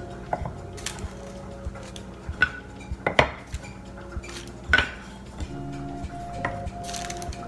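Stained wooden slats being set into a clamped wooden tray frame, knocking and clacking against the frame and each other in a run of sharp, uneven knocks, the loudest about three seconds in and just under five seconds in.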